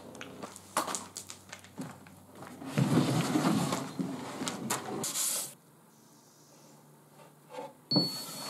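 Woodworking handling noises: knocks and clatters of plywood and bar clamps, with a stretch of rough wood-on-wood rubbing about three seconds in. Near the end, a knock and a brief high whine as a cordless drill starts.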